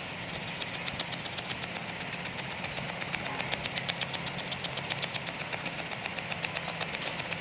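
Spine of a Fällkniven F1 knife scraped quickly and repeatedly along split wood, several strokes a second, raising fine shavings for tinder.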